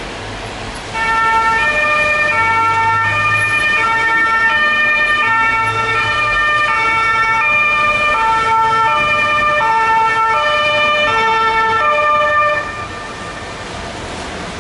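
Two-tone sirens of several police vans sounding together, each switching back and forth between a high and a low note, out of step with one another. They start about a second in and cut off near the end, over steady road traffic noise.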